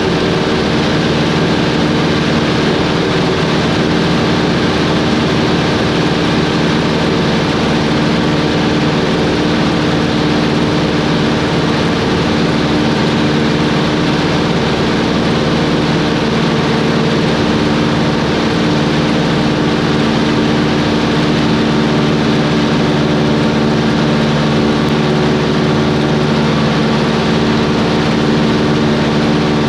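Cessna 140's single piston engine and propeller droning steadily in flight, heard from inside the small cabin, with broad rushing noise under a constant engine hum.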